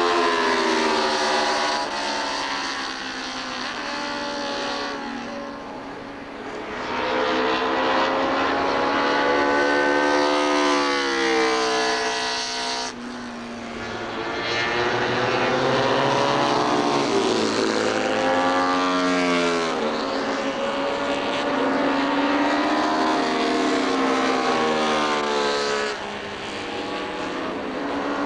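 Honda RC166 250cc six-cylinder four-stroke racing engine revved hard, its high pitch climbing through the gears and falling back again and again as the bike laps. The sound breaks off abruptly about halfway through and picks straight up again.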